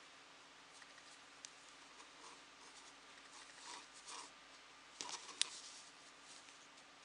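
Faint rustling and scratching of yarn as hands tie a knot in it and handle the crocheted fabric, with scattered small clicks. A sharp click about five and a half seconds in is the loudest sound.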